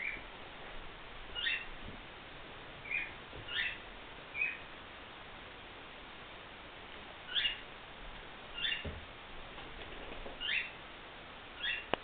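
Cockatiel giving about ten short chirping calls, spaced a second or two apart, several sweeping upward in pitch.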